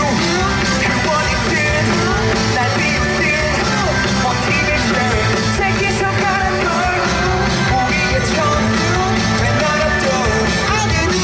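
Amplified rock song with a singer's voice carried over a full band accompaniment, loud and steady throughout.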